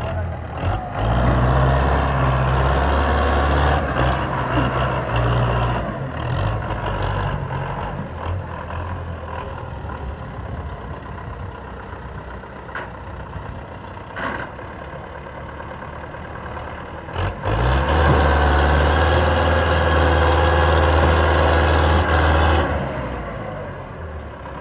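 Belarus 510 tractor's diesel engine under heavy load, straining to pull a loaded sugarcane trolley. It runs hard for several seconds, eases off, then runs hard again for a few seconds before dropping back near the end.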